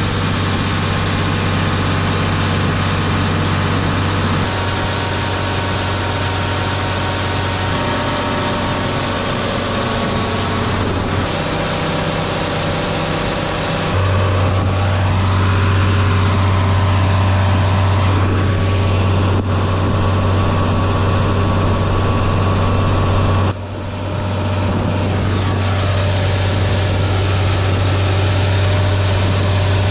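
Farm tractor engine running steadily, a deep continuous hum that grows louder about halfway through, with a brief dip in level near the end.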